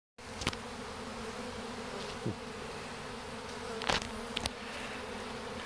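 Honeybee swarm buzzing steadily as a low, even hum, with a few brief louder moments. Bees at the hive entrance are fanning their wings to spread the queen's pheromone so that the swarm follows into the box.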